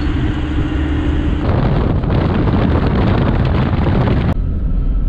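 Toyota Landcruiser 79 series driving on a dirt road: loud tyre and road noise with wind buffeting the microphone, and a steady hum over the first second and a half. The sound changes abruptly about a second and a half in, and again near the end, where it turns quieter and lower.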